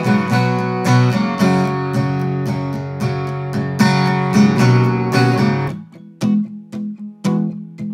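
Steel-string acoustic guitar strummed in full chords, about two strokes a second, thinning to sparser plucked notes about six seconds in. Played in a small untreated room, it sounds obviously roomy.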